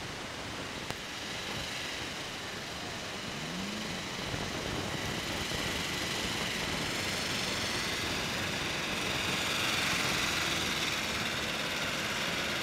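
A Land Rover Defender's engine running at low revs as the 4x4 crawls closer over rocky ground, growing gradually louder.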